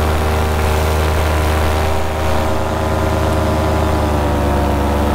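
Paramotor engine and propeller running steadily under power, its pitch easing slightly near the end.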